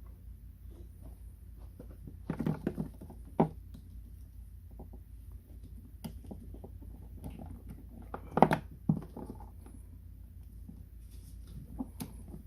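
Scattered clicks, knocks and rustles of hands working at the plastic body and wiring connectors of a kids' ride-on electric toy truck, with the loudest clatter a little past the middle, over a steady low hum.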